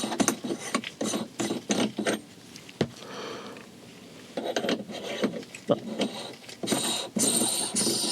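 Metal shifter knob being handled and threaded onto a transfer-case shift lever: irregular runs of small clicks, rattles and scraping of metal parts.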